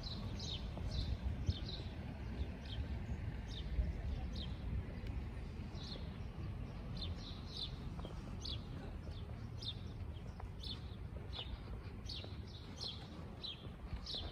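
Small birds chirping, many short high notes in quick, irregular succession, over a steady low rumble.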